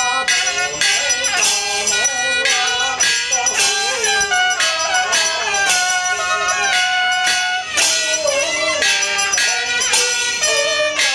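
Traditional Chinese Taoist ritual music: a wavering melodic line over regular percussion strikes, about two a second, with jingling bells and cymbal-like clashes.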